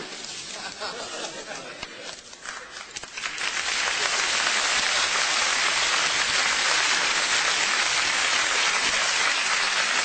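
Studio audience applauding: scattered claps at first, swelling about three seconds in into steady, loud applause.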